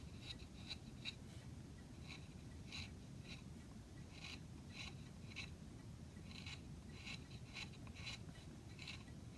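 A quarter-inch chisel paring and scoring oak by hand: faint, short scraping strokes, irregular, about one or two a second.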